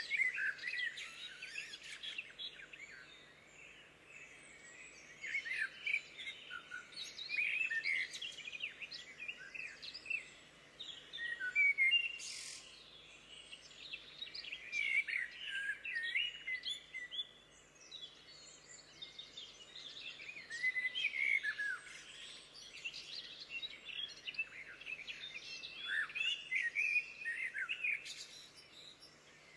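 Wild songbirds singing and chirping, several calls overlapping in bursts every few seconds.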